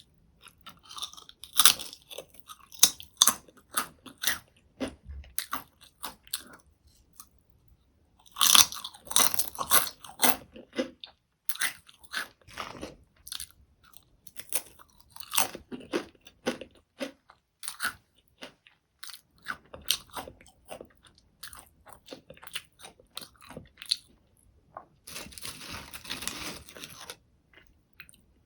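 Close-miked crunching and chewing of salty potato chips: sharp crisp crunches coming in bursts as chips are bitten and chewed, with short pauses between mouthfuls.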